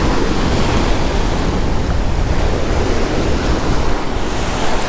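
Surf washing onto a sandy beach, with wind buffeting the microphone in a steady, even rush.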